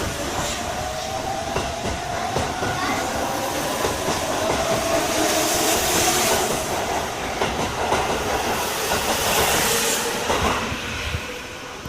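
A Keihan Main Line electric train running past, its wheels clacking over rail joints under a steady rumble. A faint whine rises slightly in pitch. The sound eases off in the last second.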